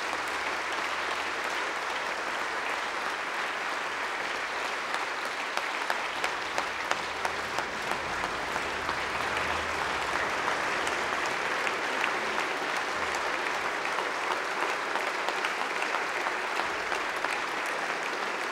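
Long, steady applause from a large audience of lawmakers filling the chamber, with a few sharper single claps standing out about six to ten seconds in.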